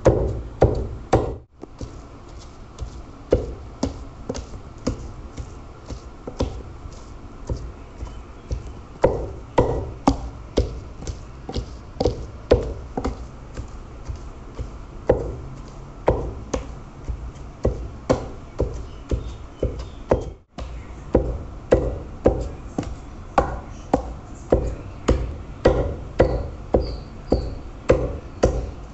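Wooden pestle pounding raw meat in a stone mortar: dull, regular thuds about two a second, twice broken off for a moment. The meat is being beaten to a smooth paste for Kashmiri rista meatballs.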